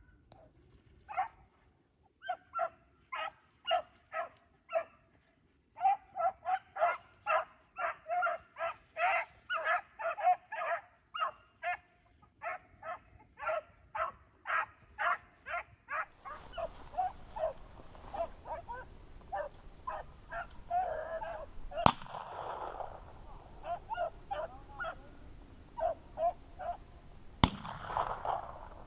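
Pack of beagles baying on a rabbit's trail, a fast, steady run of short yelps that continues throughout. A little past halfway a steady rushing noise joins in, and near the end two sharp cracks ring out about five seconds apart.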